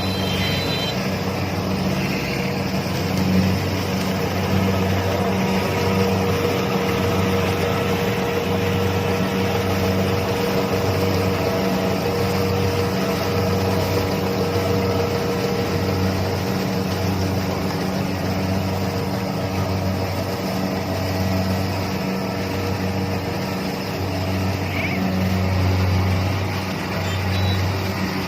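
Kubota DC-70 combine harvester running steadily while harvesting rice: a diesel engine's low hum that swells and fades unevenly, with a thin steady whine above it and the rattle of the machinery.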